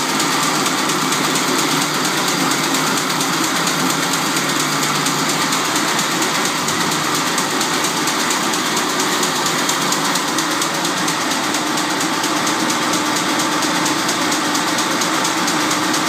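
Staubli-type electronic jacquard machine running at speed: a steady, fast, even clatter from its knives and hooks lifting the harness cords.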